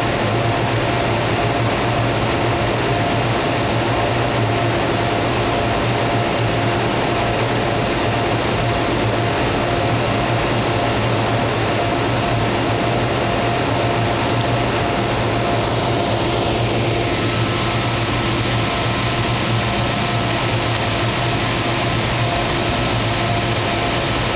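Steady hum and rush of a recirculating aquaculture system's machinery and moving water, with constant low and mid hum tones. About two-thirds of the way through, a falling sweep passes and a faint high tone joins.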